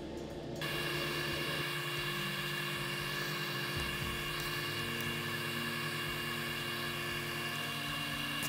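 Airbrush hissing steadily as it sprays black paint, starting abruptly about half a second in, with a few high whistling tones in the hiss and a low steady hum underneath.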